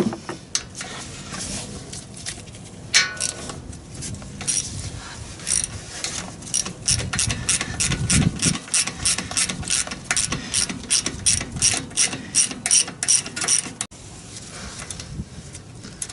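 Hand ratchet wrench clicking in an even run of quick strokes, about four clicks a second, as fasteners holding the carburetor are backed off. A few scattered clicks and knocks come before the run, which stops suddenly near the end.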